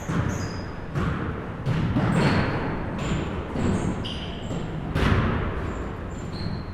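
Basketballs bouncing on a gym floor at irregular intervals, roughly once a second, with short high sneaker squeaks between the bounces.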